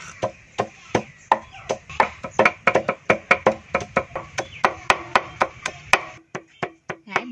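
Garlic, chili and lemongrass being pounded fine with a pestle: quick, steady strikes about three to four a second, growing softer near the end.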